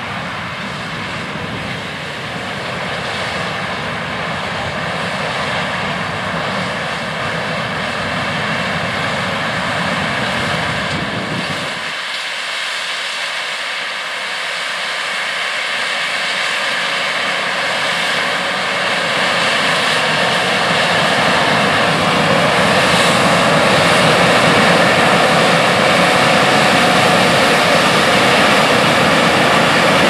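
John Deere S790 combine harvester running while it harvests corn, a steady diesel and machinery drone with a faint whine. About twelve seconds in the low rumble drops out suddenly, and through the second half the sound grows louder as a John Deere 9420R tractor pulling a grain cart drives up close.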